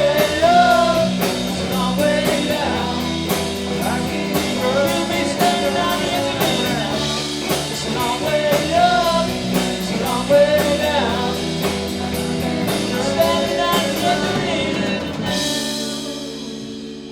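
Live rock band playing, with singing over guitar and a steady drum beat. About fifteen seconds in, the drums stop on a cymbal crash and the final chord is left ringing.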